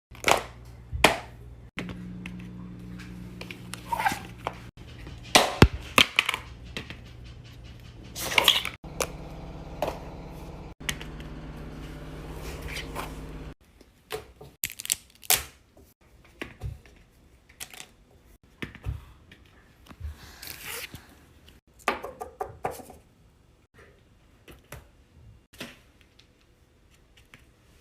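Fidget toys being handled and pressed: a string of irregular sharp clicks and pops. A low steady hum sits under the clicks through the first half, then stops.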